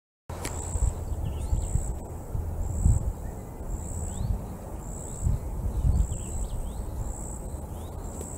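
Outdoor woodland ambience that cuts in after a brief silence: birds chirping briefly and a high buzzing call pulsing about once a second, over an uneven low rumble.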